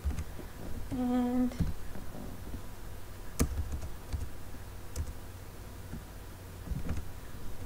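A few scattered computer keyboard and mouse clicks, sharp single clicks a second or so apart, over a low steady hum.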